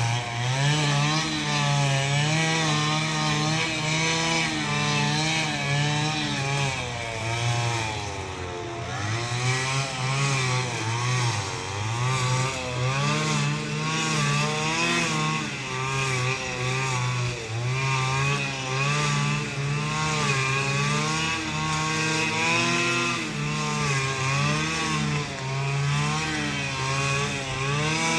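Handheld two-stroke power tool engine running hard under load, its pitch rising and dipping again and again as it cuts through vegetation during clearing work.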